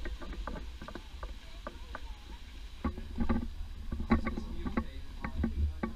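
Footsteps of several hikers scuffing and crunching on a rocky gravel path, an irregular run of short crunches that grows louder about halfway through, over a steady low rumble on the microphone.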